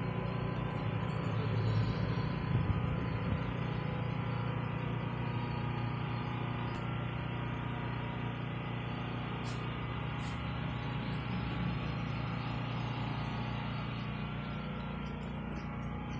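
Steady low hum of refrigerated drink coolers and chest freezers running, with a few faint clicks.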